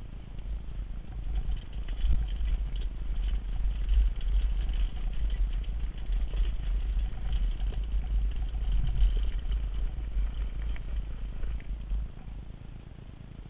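Wind buffeting the microphone of a camera on a mountain biker riding a dirt trail, with tyre rumble and the bike rattling over the rough ground. It eases near the end.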